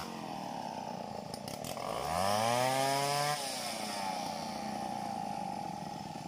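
Stihl 070 two-stroke chainsaw running. It revs up steeply about two seconds in, holds at high speed for about a second and a half, then drops back suddenly to a lower, steady speed.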